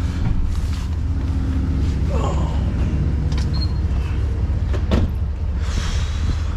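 Steady low rumble of a car in motion, heard from inside the cabin, with a few scattered clicks and knocks.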